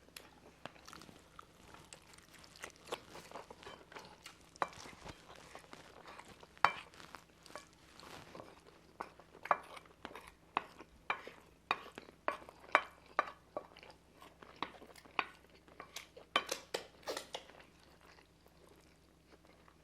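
Cutlery clicking and scraping irregularly against plates, with chewing, as two people eat rice and chicken curry as fast as they can. The clicks come thickest about halfway through.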